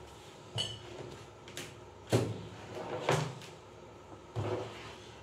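Handling noise on a workbench: about five separate knocks and clacks as test leads and a welding machine's control circuit board are moved and set down, the loudest a little after two seconds in.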